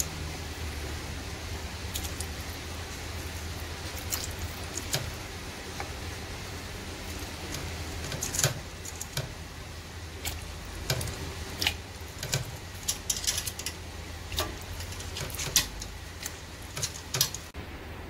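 Pieces of pig trotter dropped one after another into a steel stockpot of liquid: a string of short splashes and knocks, most of them in the second half, over a steady low hum.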